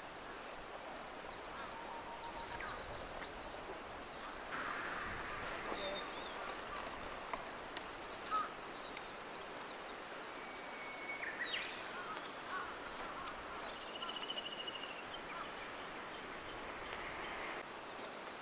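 Outdoor ambience: birds chirping and calling now and then, including a short trill, over a steady low hiss; one brief louder note a little past the middle.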